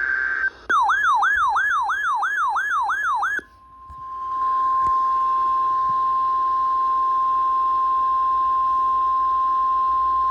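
Weather radio alert tones: the end of a buzzy SAME digital header burst, then a warbling siren tone sweeping up and down about three times a second for nearly three seconds. After a short gap comes the steady single-pitch 1050 Hz NOAA Weather Radio warning alarm tone, the signal that a warning message follows.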